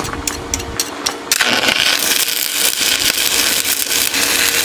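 Stick-welding arc on an HTP Inverarc 160 Plus: a few sharp ticks as the electrode is scratched on the steel to strike, then the arc catches about a second in and burns with a loud, steady crackling hiss.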